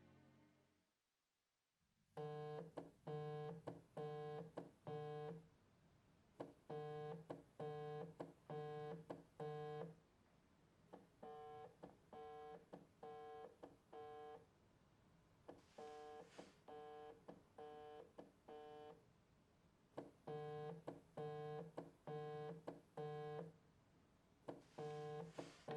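A phone ringing: a repeated electronic ringtone of short beeps at one pitch, in groups of about five beeps, each group followed by a short pause.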